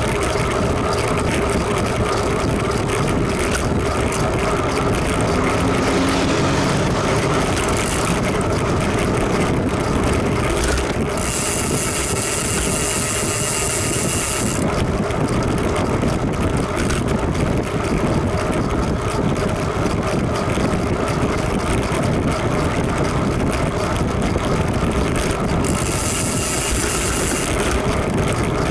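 Steady wind and road noise on a camera mounted on a moving bicycle. A high-pitched hiss or buzz comes in twice: for about three seconds around a third of the way in, and for about two seconds near the end.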